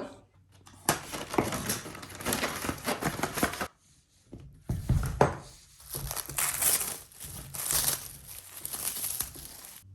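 Packaging crinkling and rustling as it is handled and pulled off bicycle parts, in two long stretches with a short pause between, and a single low knock about halfway through.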